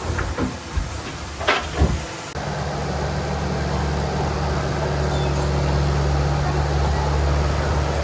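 Heavy diesel engine of earth-moving machinery running steadily, its low drone settling in a couple of seconds in, preceded by a few sharp metallic knocks.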